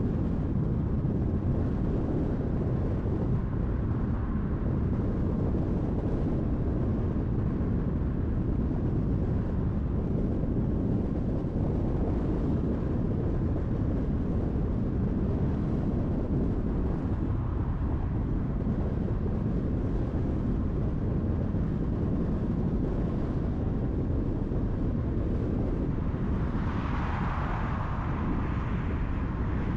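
Car driving along a highway: steady road and tyre noise with a low rumble. Near the end a brighter hiss swells for a few seconds, as of another vehicle passing.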